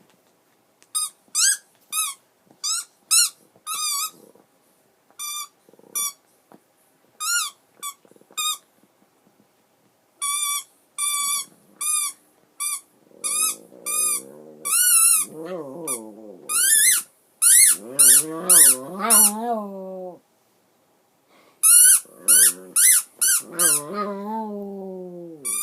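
A squeaky toy squeezed over and over in short, high squeaks, joined about halfway through by a dog howling along in long, wavering howls that slide down in pitch and overlap the squeaks.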